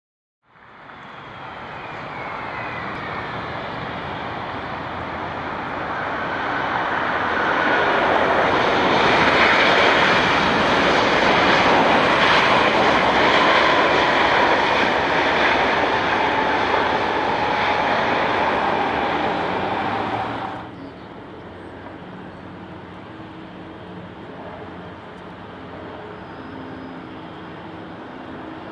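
Boeing 777-200ER jet engines during landing: a loud rushing roar with a slowly falling whine, swelling as the airliner passes close and then easing. About two-thirds through it drops abruptly to a quieter, steadier engine sound as the jet rolls along the runway.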